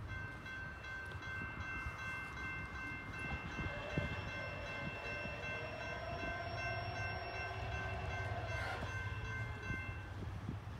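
Air horn of an approaching Norfolk Southern GE D9-44CW diesel locomotive, held as one long chord of several notes for about nine seconds, over a steady low rumble.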